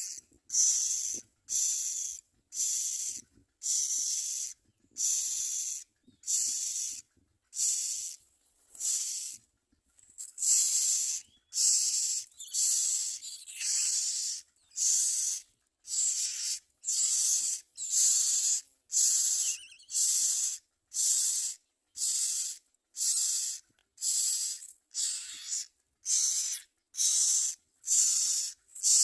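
Common myna nestlings begging with harsh, hissing rasps, repeated about once a second.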